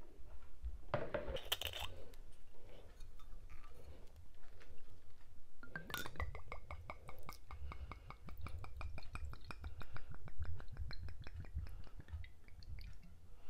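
Wine poured from a glass bottle into a stemmed wine glass: a long run of quick glugs with a ringing tone that rises slowly as the glass fills. It follows a brief clink and clatter about a second in.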